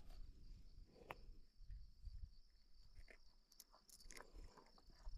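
Near silence: faint background with a steady high-pitched hum and a few small clicks and rustles.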